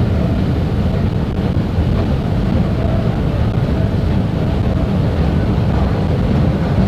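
Steady low mechanical rumble inside an MRT station, heard while riding a moving escalator, with a faint steady hum above it.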